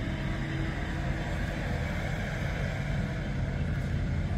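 An engine running steadily nearby, a low even rumble.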